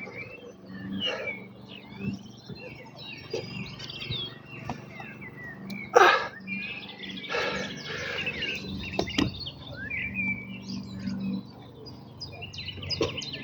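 Several songbirds chirping and singing, a busy mix of short high calls and trills. About six seconds in there is one short, loud knock or rustle, and a sharp click a few seconds later.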